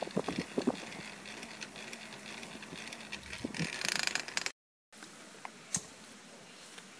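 Hand-cranked geared smoke blower being turned, its gears clicking and rattling over a faint steady whir. The sound breaks off in a short dead gap about halfway through, followed by faint background with a few ticks.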